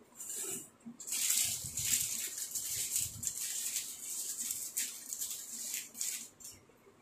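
Crinkly plastic snack packet being handled and opened by hand: a rustling crackle that starts about a second in and goes on in quick irregular crackles until shortly before the end.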